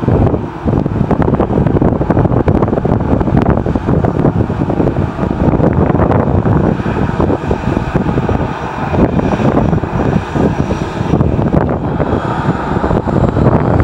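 Jet engines of an Airbus A319 running at taxi power, a steady rumble with a high whine that comes in about halfway through, under gusty wind noise on the microphone.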